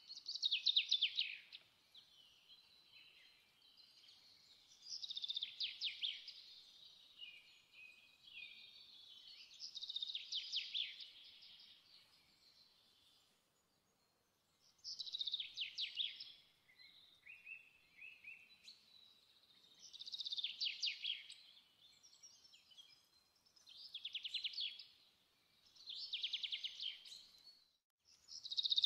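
A small songbird singing: short, rapid trilled phrases, high in pitch, repeated about every five seconds with softer twittering between them.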